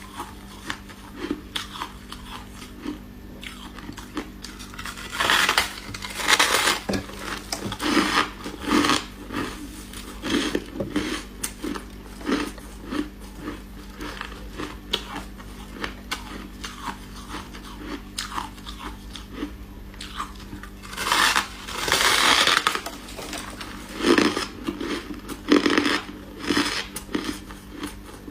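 Close-up biting and chewing of chunks of freezer frost: a run of crisp, crackling crunches, with several loud bites in two clusters, one about a fifth of the way in and one about three quarters through, and quieter chewing crunches between them.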